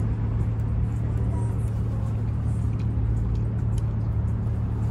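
Steady low mechanical hum with street traffic noise, and faint small clicks of chewing as food is eaten.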